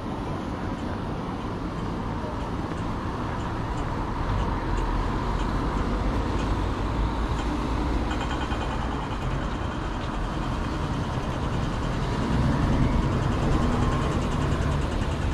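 City street traffic: road vehicles driving past with a continuous rumble that swells about four seconds in and again near the end.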